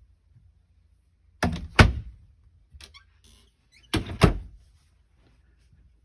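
Wooden RV cabinet doors banging shut: two sharp double clacks, about a second and a half and four seconds in, each a pair of knocks in quick succession.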